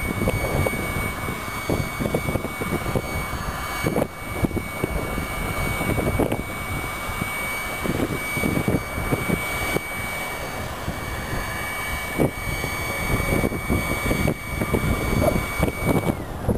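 Moored airship's onboard machinery, which the uploader takes for a compressor rather than its engines, running as it works to hold the ship steady in the wind. A steady high whine sits over a rough, uneven rumble; the whine winds down and stops near the end.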